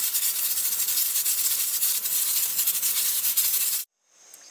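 Fire in a rocket stove burning hard, a steady hiss with fine crackling, the flames fed by syngas from the biomass in the thermal riser. It cuts off just before the end, leaving faint insect chirring.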